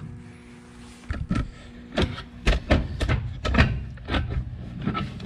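An irregular run of sharp metal clanks and knocks, starting about a second in, from a wrench working a fitting loose on a diesel engine's sea-water strainer plumbing. A steady low hum runs underneath.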